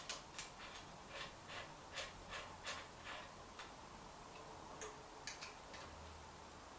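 Light mechanical clicks as a tool works on the bike's headset and stem: a run of ticks about three a second for the first few seconds, then a few scattered ones near the end.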